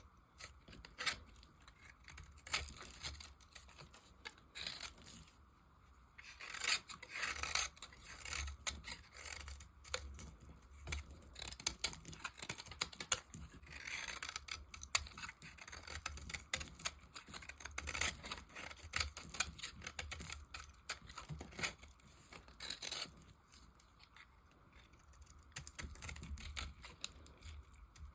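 A blade carving dry bar soap: short, irregular cutting and scraping strokes, with a few longer scrapes.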